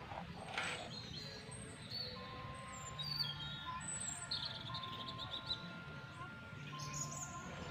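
Birds chirping with short, scattered high calls, over a low background hum.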